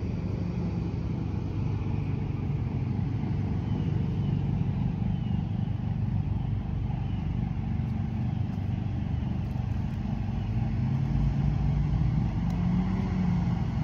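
A steady, low engine-like drone, its pitch rising slightly near the end.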